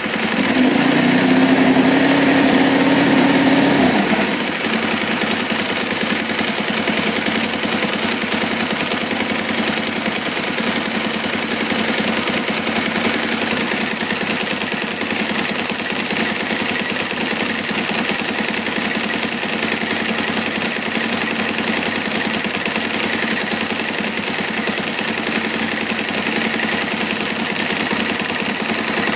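Engine idling steadily, with a louder hum over it for the first four seconds.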